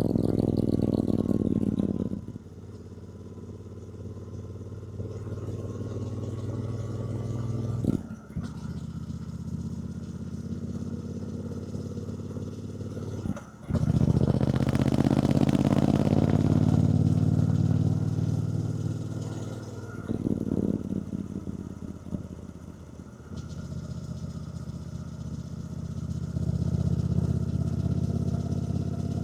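2024 Triumph Bonneville T120's 1200 cc parallel-twin engine under way, pulling and easing off with the throttle. Two brief breaks in the engine note come about eight and thirteen seconds in, like gear changes. The engine is loudest just after the second break, drops back for a while, then builds again near the end.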